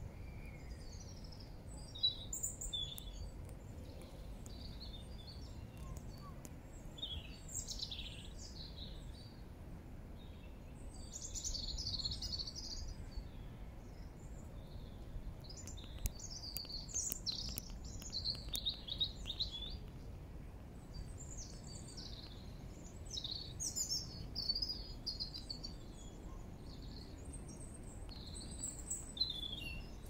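Songbirds chirping and singing on and off, in short high phrases, over a steady low background rumble.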